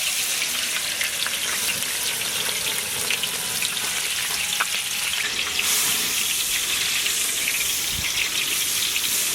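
Butter melting in hot cooking oil in a pan, sizzling steadily with fine crackles and small spatters.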